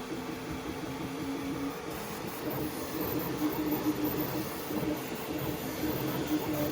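3D printer printing: its stepper motors whine in short held notes that jump in pitch as the print head changes speed and direction, over a steady hiss.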